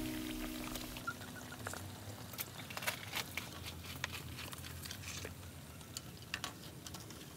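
Hot oil frying battered sweet potato slices, crackling with scattered sharp pops over a faint hiss. Background music fades out about a second in.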